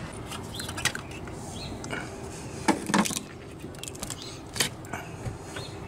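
A handful of sharp clicks and knocks as hands handle the plastic power steering reservoir and the taped siphon hose under the hood, over a steady low background noise.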